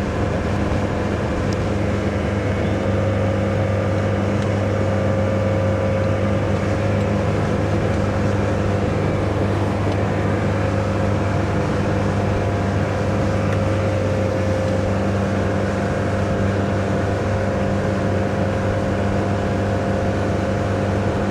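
Mercruiser 120 hp sterndrive engine, an inline four-cylinder, running steadily at a part-throttle cruise with an even pitch, the RPM held down to break in a new outdrive. Water and wind rush come along with it.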